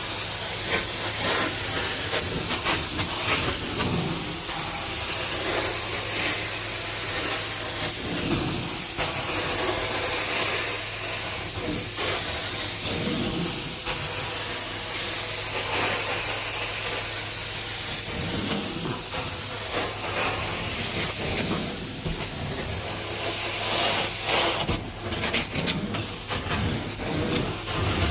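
Carpet-cleaning suction equipment running over carpet: a steady hiss of air and suction over a low hum, swelling a little now and then.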